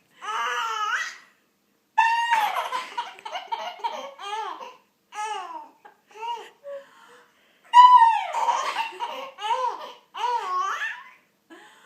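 A baby laughing in repeated short, high-pitched bursts, with brief pauses between them, set off by an adult making a high-pitched sound back at her.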